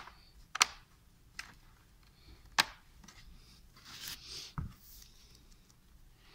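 Plastic clips of an Acer Aspire 3 N19C1 laptop's bottom cover snapping loose as a plastic opening pick is twisted along the seam. Sharp clicks, the two loudest about half a second and two and a half seconds in. A scrape and then a low thump follow about four seconds in.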